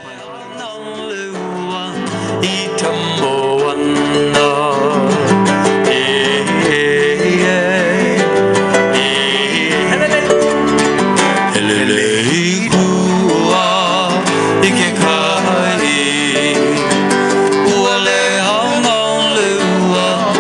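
Hawaiian music led by plucked acoustic guitar, building up in loudness over the first two seconds and then playing on steadily.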